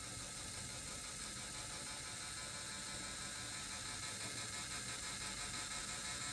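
Battery-powered LEGO Technic electric motor running steadily, turning the plastic gears and beam linkage of a sun and planet gear mechanism with an even whir.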